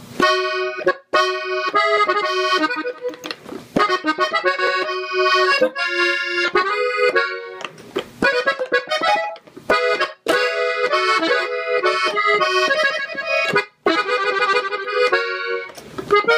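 Gabbanelli button accordion, tuned in E, playing the intro of a norteño song in B major as a melody with chords, with a few short breaks between phrases.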